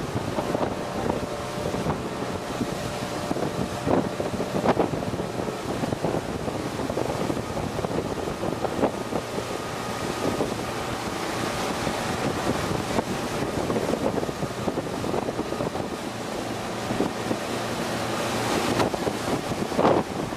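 Wind buffeting the microphone over a steady droning hum, with a few scattered knocks.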